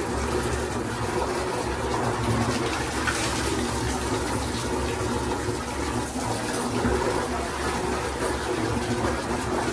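Water running steadily from a tap into a bucket, over a steady low hum.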